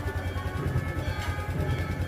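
Music playing over a continuous, rapidly fluttering low rumble.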